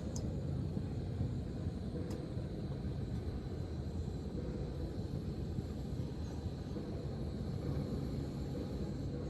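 A steady low rumble, with a sharp click at the start and a fainter click about two seconds in.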